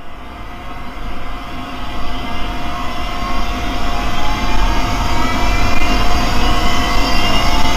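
Made-up kaiju monster sound effect: a dense rumbling noise that fades in from silence and swells steadily louder, with faint rising whines running through it.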